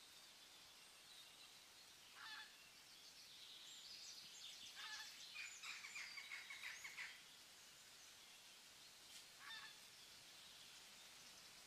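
Faint bird calls over a soft hiss of outdoor ambience: a short call about two seconds in, a quick run of repeated high chattering notes from about four and a half to seven seconds, and another short call near nine seconds.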